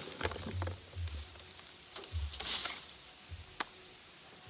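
Rustling and crackling of uprooted tomato plants, dry stems and leaves, being tossed into a wooden compost bin. There is a louder rustle about two and a half seconds in and a single sharp click a second later.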